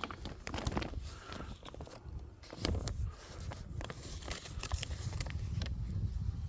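A plastic greenhouse cover being handled, rustling and crinkling with scattered clicks, over a low rumble.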